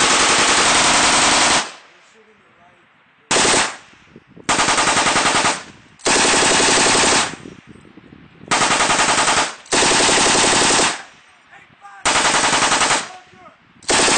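Machine gun firing bursts of automatic fire: about eight bursts, most about a second long and one shorter, with brief pauses between them.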